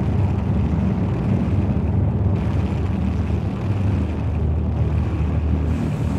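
Steady low rumbling drone of an ambient soundscape, unbroken and without a beat.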